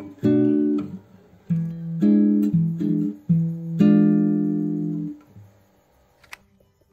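Background music: plucked guitar notes and chords that ring out and die away about five seconds in.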